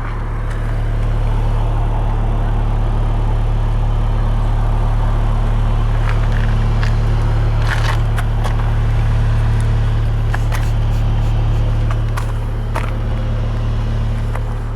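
SEAT Leon Cupra 290's 2.0-litre turbocharged inline-four running at a steady idle through its stock exhaust in Cupra mode, a deep, bassy note. It swells slightly about a second in and eases a little near the end, with scattered sharp ticks and clicks through the middle.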